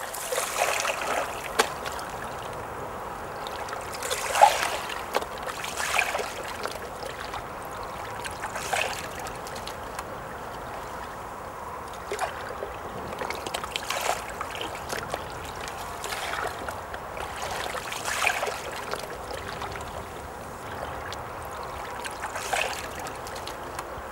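Water trickling and lapping, with light splashes every couple of seconds; the strongest comes about four seconds in.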